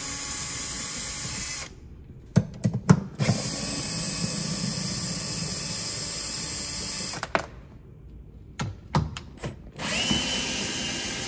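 Cordless drill with a 10 mm socket backing out 10 mm bolts, its motor running steadily in three spells of a few seconds each. Between the spells come short clicks and clatter as the socket is moved onto the next bolt. The third spell starts with a rising whine.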